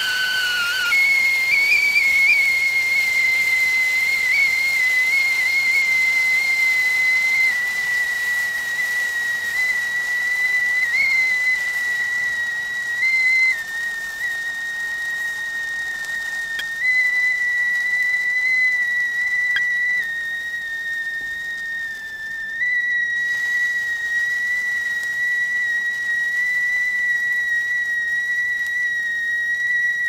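Whistling tea kettle at the boil: one continuous high-pitched whistle that jumps up in pitch about a second in, then holds steady with slight wavers, over a faint steam hiss.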